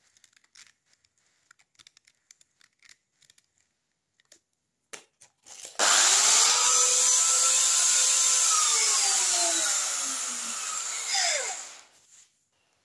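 Parkside PDOS 200 C2 bench grinder switched on about halfway through, its whine rising briefly and then running steady under a loud hiss for a few seconds. It is then switched off and winds down with a falling whine until it stops near the end. Before it starts there are only faint handling clicks.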